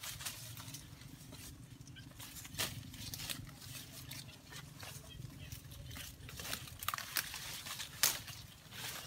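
Leaves and twigs rustling, with scattered crackles and snaps, the sharpest about eight seconds in, over a faint steady low hum.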